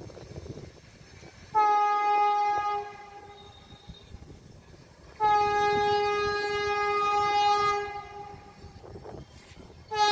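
Vande Bharat Express horn sounding from the approaching train: a short blast of about a second, then a longer one of about two and a half seconds, with a third just starting at the very end. Each blast is one steady tone at the same pitch, the horn by which the Vande Bharat can be told apart.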